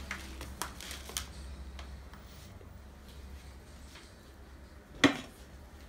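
Light clicks from a metal teaspoon sprinkling za'atar over a plate of hummus, with one sharper click about five seconds in, over a faint steady low hum.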